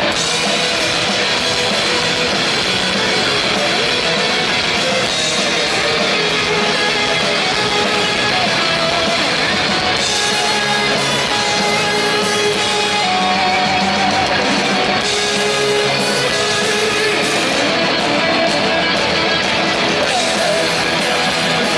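Live punk rock band playing at a steady, loud level, with electric guitars and drums.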